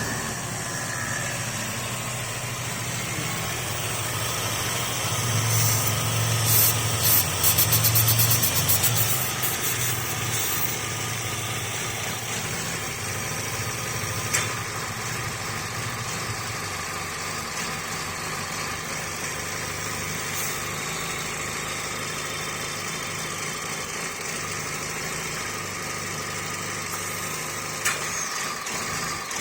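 Chevrolet Sonic's petrol engine idling, swelling louder for a few seconds about five seconds in and then settling back to a steady idle. The uploader puts the unsteady, rough idle down to a leaking PCV valve.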